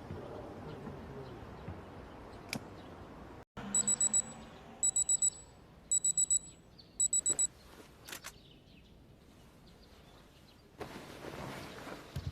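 Digital alarm clock beeping: four bursts of rapid, high-pitched beeps, about one burst a second.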